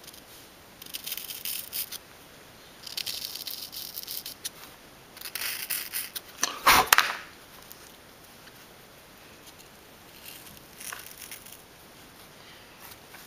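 A pointed tool scraping and picking at a soft cuttlefish-bone mould to free a cast bronze ring. There are several bursts of gritty scratching, the loudest ending in a sharp knock about seven seconds in, and a fainter bout of scratching near the end.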